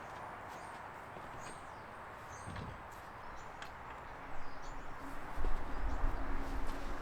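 Outdoor ambience: short bird chirps over a steady background hiss, with a few light clicks. About four seconds in, a louder low rumble and a steady hum join.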